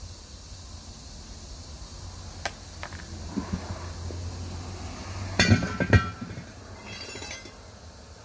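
Steel tire irons and a steel truck wheel handled on pavement: a few light clicks, then two loud ringing metal clanks about five and a half and six seconds in.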